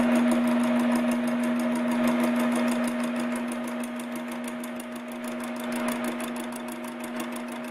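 Metal-working engine lathe running steadily as it turns a wooden handle between centres: a steady machine hum with a fast, even ticking from the drive.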